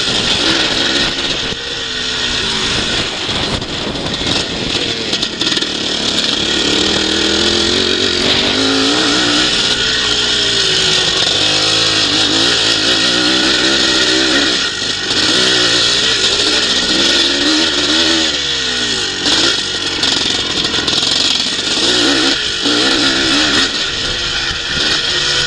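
Twinshock classic motocross bike's engine revving up and falling back over and over as it is raced round a dirt track, heard from on the bike.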